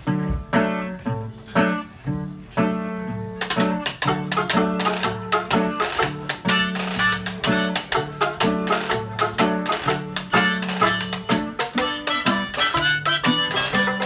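Old-time jug-band music on banjo, resonator guitar and harmonica: a few sparse plucked chords open, then about three and a half seconds in the full band comes in with a steady strummed rhythm.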